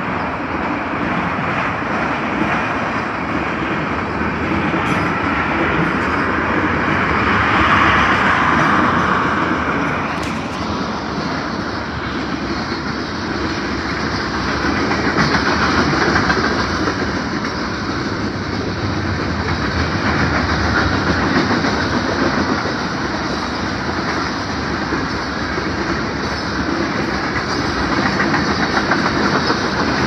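Mixed freight train cars rolling past at close range: a steady rumble and clatter of steel wheels on the rails, with no horn sounding.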